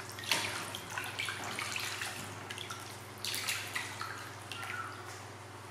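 Hands washing pieces of fish in a plastic basin of water: irregular sloshing and splashing, with drips as the pieces are moved about.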